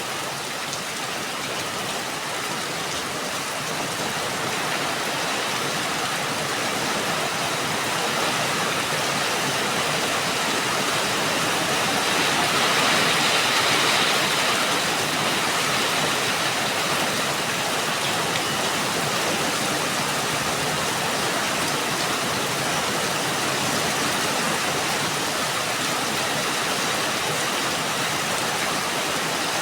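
Steady rain falling, a dense even hiss that swells for a couple of seconds about halfway through.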